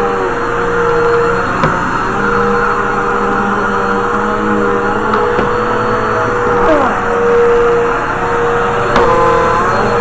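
Vacuum cleaner running steadily over a wooden floor, a constant motor hum with a steady whine. Two short knocks, about two seconds in and again near the end.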